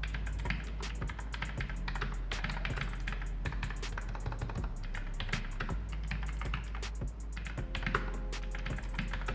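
Typing on an Armaggeddon SMK-6C mechanical keyboard with low-profile switches: a fast, continuous stream of crisp key clicks.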